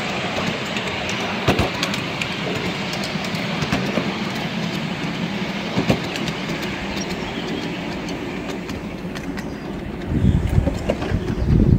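Ride-on miniature railway train running along the track: steady rolling wheel noise with scattered sharp clicks of the wheels over the rail joints. A louder, uneven low rumble comes in near the end.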